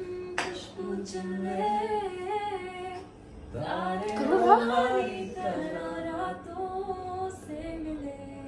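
A woman singing unaccompanied, in long held notes that slide and waver, with a rising swoop of the voice about four seconds in.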